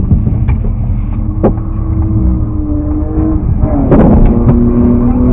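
Car engine idling, heard from inside the car: a steady low rumble with a steady hum whose pitch steps down slightly about four seconds in. A few light clicks come early, and a short clatter follows about four seconds in.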